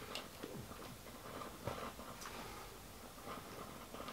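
Faint, scattered clicks and light knocks over a low steady hiss.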